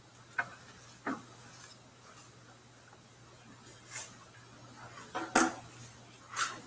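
A few scattered short clicks and knocks, unevenly spaced, over a faint steady low hum.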